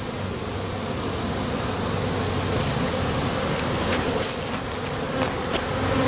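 Honey bees buzzing steadily as worker bees fly around and crawl onto a queen cage held close to the camera.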